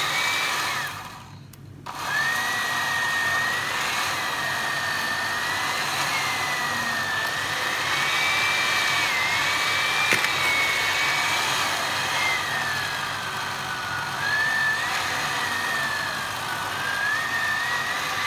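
Electric hand mixer running, its beaters creaming butter, sugar and oil in a plastic bowl. It stops briefly about a second in, then runs on with a motor whine that wavers up and down as the beaters meet the mix.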